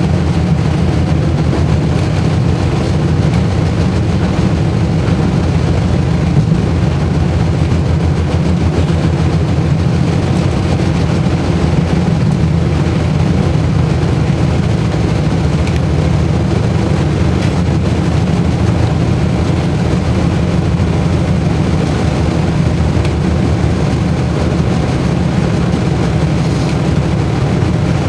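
Cabin noise inside a Belkommunmash AKSM-84300M low-floor tram running along the line: a loud, steady low rumble with no change in pitch.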